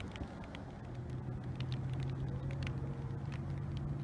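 A motor vehicle's engine running with a steady low hum that comes in about a second in, over a low rumble and a few faint clicks.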